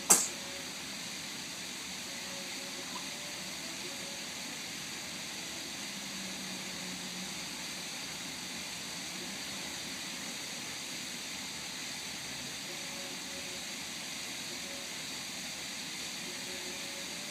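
A single small sneeze from a three-month-old: one short, sharp burst right at the start. After it there is only a steady hiss.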